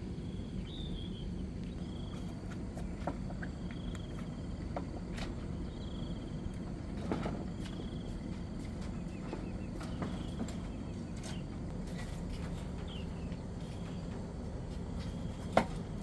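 Outdoor ambience: a steady low rumble with a short, high call from a small animal repeating about once a second. A few light clicks and taps run through it, and one sharp knock comes near the end.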